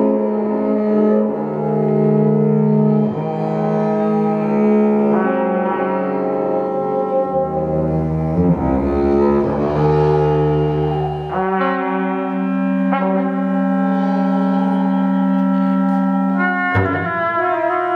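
Contemporary chamber music: a solo double bass bowing long held notes among other sustained instruments. The chord changes about two-thirds of the way through and again near the end, and a deep low note sounds in the middle.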